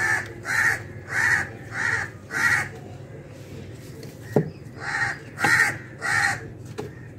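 A crow cawing in a series: five caws about half a second apart, a pause, then three more. About four seconds in there is a single knock of firewood going into the clay tandoor.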